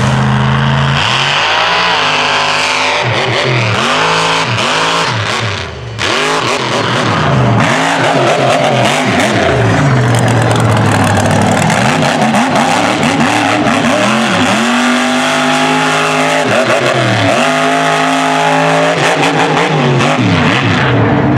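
Mega truck's big engine revving hard, its pitch climbing and falling again and again as the throttle is worked. The sound dips and breaks off briefly about six seconds in.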